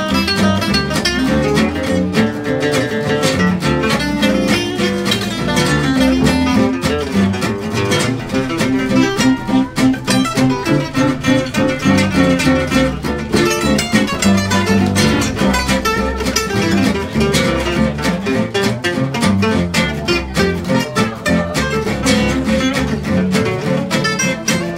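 Small acoustic jazz band playing a swing tune: two acoustic guitars strum a steady chugging rhythm under double bass and clarinet.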